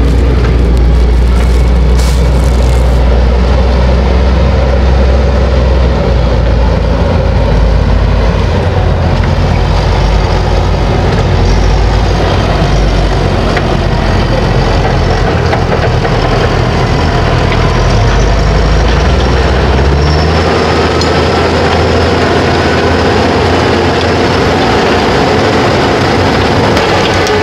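Fendt 718 Vario tractor's diesel engine running steadily while working a field with a Maschio implement, with a deep low rumble that drops away about two-thirds of the way through.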